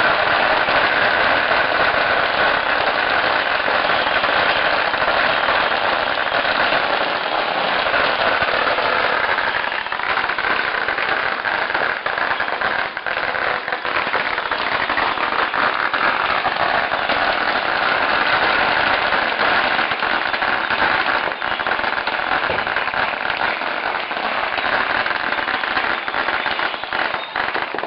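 Firecrackers going off in a dense, unbroken crackle of rapid pops that continues throughout.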